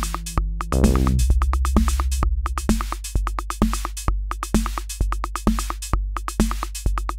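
Akai Rhythm Wolf analog drum machine and bass synth playing a pattern: rapid hi-hat ticks over a stepping synth bass line. About two-and-a-half seconds in, it settles into a steady kick drum roughly once a second under the ticks.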